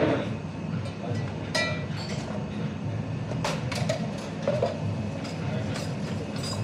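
Café counter work: a steady low hum of running machinery under several sharp metallic clinks of stainless milk jugs and cups being set down and handled.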